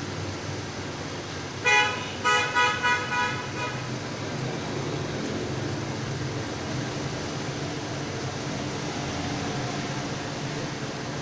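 A horn honking: one toot, then about four quick toots, each fainter than the last. A steady low hum runs underneath.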